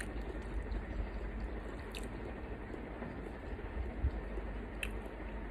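A person chewing food between mouthfuls, with a few faint clicks.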